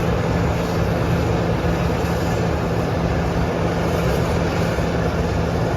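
Harvest machinery's engine running steadily under load, a low hum with a broad rushing noise over it.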